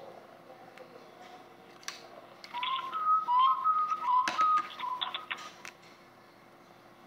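Whistle-like tune of short notes hopping between two or three pitches, coming through a Nokia N900's loudspeaker on speakerphone during a call, with a few sharp clicks around it.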